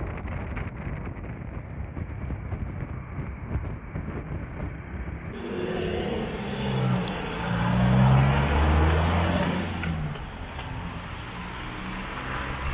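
A steady rumble, then, after an abrupt change about five seconds in, a motor vehicle's engine passes close, loudest about eight seconds in and then fading.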